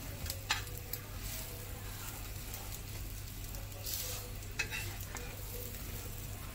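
Egg omelette sizzling steadily in oil in a frying pan, with a slotted spatula scraping and pressing against the pan several times.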